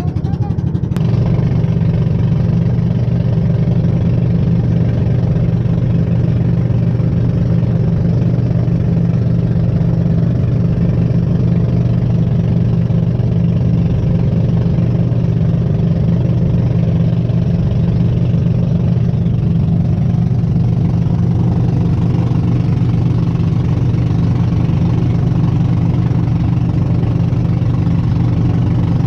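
Outrigger boat's engine running steadily at cruising speed while the boat is underway, a constant low drone.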